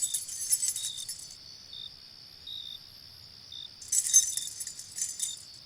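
Steady insect chirring with short repeated chirps, overlaid twice by a spell of light, high metallic jingling, each about a second and a half long: once at the start and once near the end.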